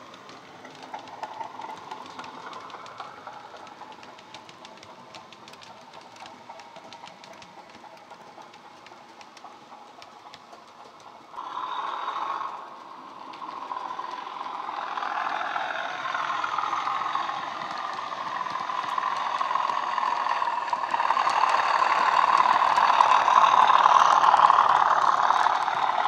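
Bachmann Class 37 model locomotive's DCC sound decoder playing an English Electric diesel engine through the model's built-in speaker, with a short horn blast about eleven seconds in. After the horn the engine note swells and its turbocharger whistle rises and falls, growing loudest near the end as the train comes past close by.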